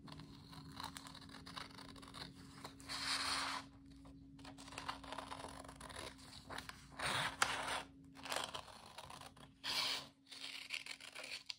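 Scissors cutting through a folded, double-layered sheet of printer paper, trimming off a strip in a series of separate slicing strokes with short pauses between them.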